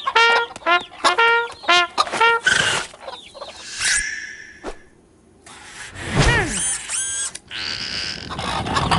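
Cartoon soundtrack: short staccato brass-like notes for the first couple of seconds, then comic sound effects with a cartoon hen's clucking and squawking cries, growing into a busy scramble of noise near the end.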